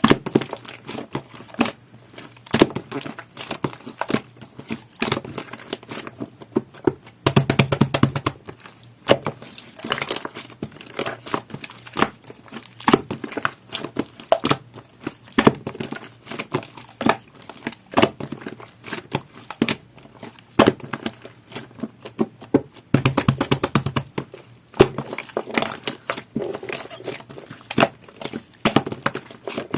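Hands squishing, pressing and stretching a jelly-textured slime, making dense, irregular sticky clicks and pops, with two louder flurries of a couple of seconds each.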